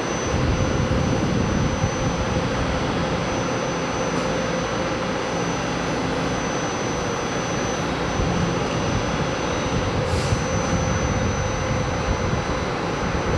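Taiwan Railways EMU500 electric multiple unit pulling out of a station: a steady rumble of wheels and running gear, with a faint steady high tone over it and a brief hiss about ten seconds in.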